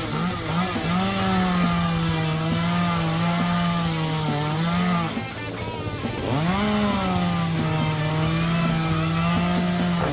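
Chainsaw running at full throttle and cutting wood; about five seconds in it drops off, then revs back up a second or so later and cuts again.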